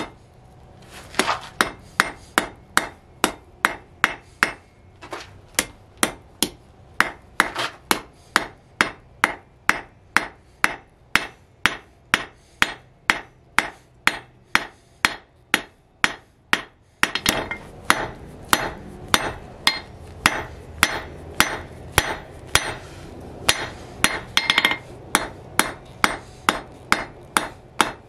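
Hand hammer striking a red-hot steel bar on a steel anvil in a steady rhythm, about two to three blows a second, with a short pause about a second in. The blacksmith is forging the hot tip of the bar.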